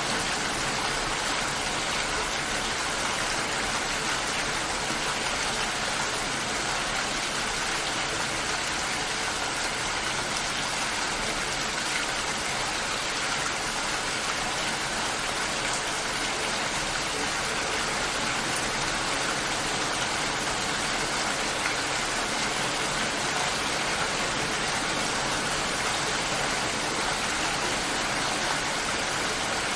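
Steady rainfall, an even, unbroken hiss that holds at the same level throughout.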